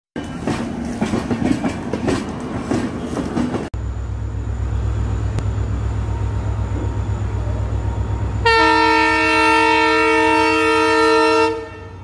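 Passenger coaches rolling past with clattering wheels. After an abrupt cut comes the low rumble of an approaching WDP4D diesel locomotive, which sounds its horn in one long blast of about three seconds, several tones at once, cutting off sharply near the end.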